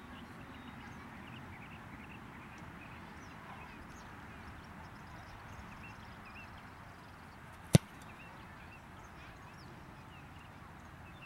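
A single sharp thump of a foot kicking a football off a tee on a long field goal attempt, about three-quarters of the way through, over a faint steady outdoor background.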